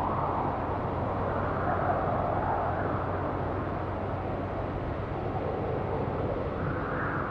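Distant city traffic hum, a steady wash of noise that swells and eases slowly.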